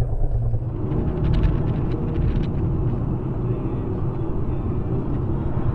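Steady low rumble of a car driving, heard from inside the cabin, with a few faint clicks about one to two and a half seconds in.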